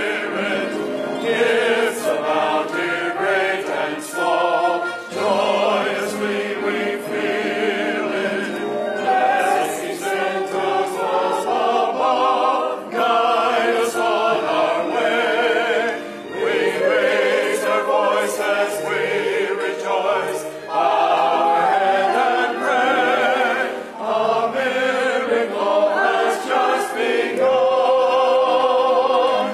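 Mixed church choir of men and women singing a Christmas piece, phrase after phrase with short breaks between.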